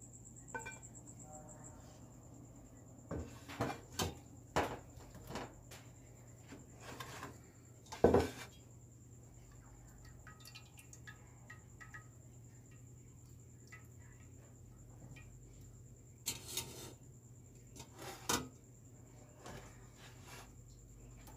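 Stainless steel pot and metal mesh strainer knocking and clanking as they are handled, a run of sharp knocks with one loudest clank about eight seconds in. Water is poured over the cooked tapioca pearls in a short splash a little after halfway through.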